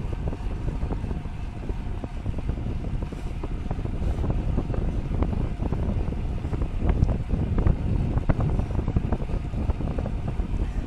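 Wind buffeting the microphone of a camera on a moving bicycle: a steady low rumble with gusty flutters.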